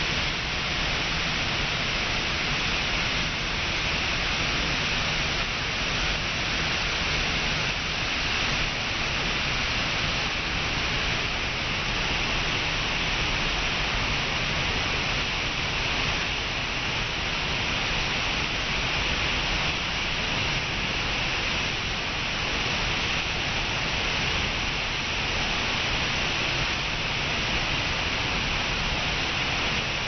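Waterfall plunging into a pool: a steady, even rush of falling and splashing water that never lets up.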